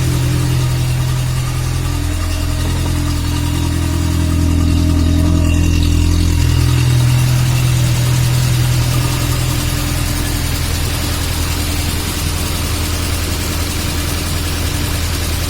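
VAZ 2101–2107 Zhiguli running in gear with the rear raised, spinning a rear axle shaft with its brake drum off: a steady engine and drivetrain hum that grows a little louder and shifts in pitch between about four and seven seconds in. No rattle comes from the re-greased axle-shaft bearing.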